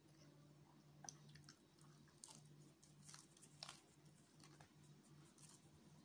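Faint close-up chewing of a bite of pizza: scattered soft wet smacks and small clicks of the mouth.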